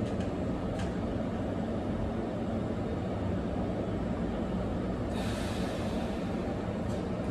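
Keihan 9000 series electric train standing at a platform, its onboard equipment humming steadily, with a short hiss a little after five seconds in.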